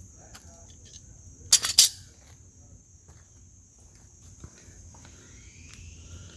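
Crickets chirring steadily, with two sharp metallic clicks close together about a second and a half in and a faint rising whine near the end.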